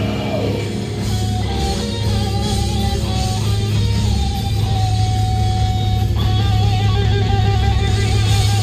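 Live rock band playing loud from the venue PA, heard from the crowd: electric guitars over drums. A lead guitar line holds long notes, which waver with vibrato from about six seconds in.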